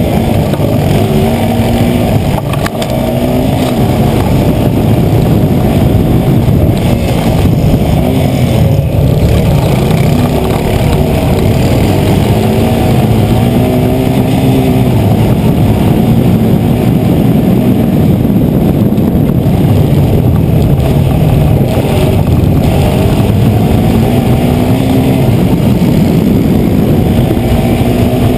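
Racing quad bike's engine heard from on board during a lap, its pitch rising and falling again and again as the throttle is opened and closed.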